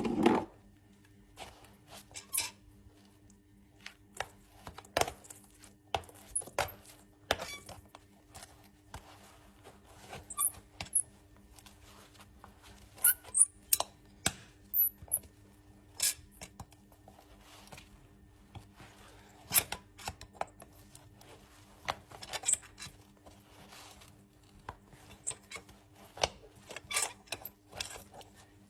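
Farrier's tools working a horse's hoof: irregular sharp clicks, snips and short scrapes, a few seconds apart, over a faint steady hum.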